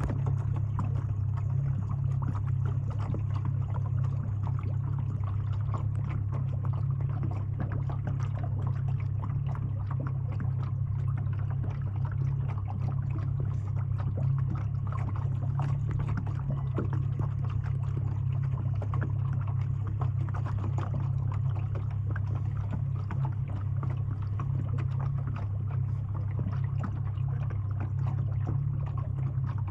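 Small lake waves lapping and trickling in many little irregular splashes, over a steady low hum.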